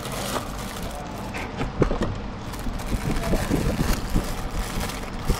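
Plastic packaging crinkling and rustling as hands pull a string of LED lights out of its wrapper and box, with irregular handling knocks, the sharpest about two seconds in.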